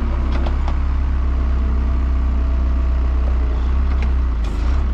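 Skid steer engine running steadily with a constant low hum, a few faint clatters over it.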